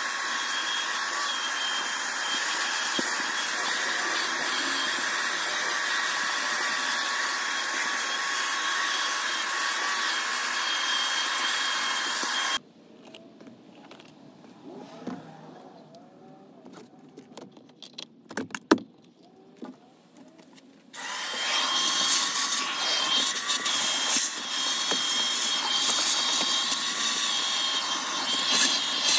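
Vacuum cleaner running steadily through its hose, stopping abruptly about twelve seconds in. A quiet stretch with a few knocks follows, then the vacuum comes back abruptly about twenty-one seconds in, a little louder and with many small clicks as the nozzle works around the console.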